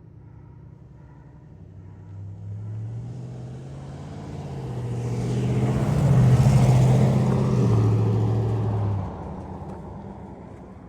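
A road vehicle approaching and passing close by: its engine hum and tyre noise swell to a peak about six seconds in, then drop away and fade.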